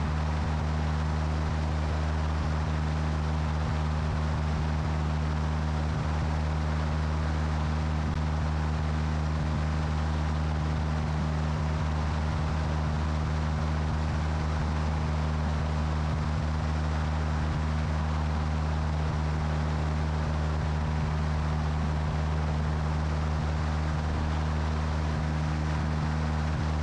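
Light aircraft's engine and propeller droning steadily in cruise flight, heard from a camera under the wing, with a steady rush of airflow.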